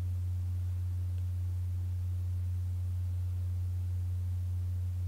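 A steady low hum, one unchanging low tone with no other sound over it.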